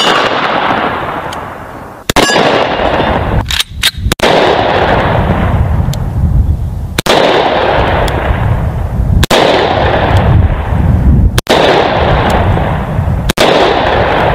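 Gunfire sound effect: a string of loud blasts about two seconds apart, each trailing off in a long rumble.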